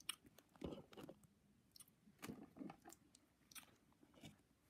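Faint handling noise: light clicks and soft rustles of small plastic dolls being moved and set down on carpet.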